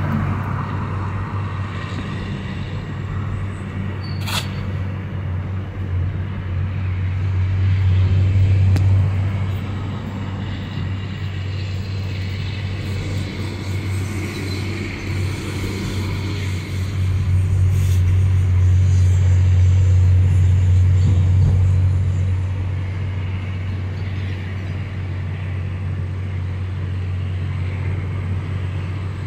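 Low, steady vehicle rumble heard from inside a car's cabin while driving slowly, swelling louder for a couple of seconds about seven seconds in and again for several seconds from about seventeen seconds. A single sharp click about four seconds in.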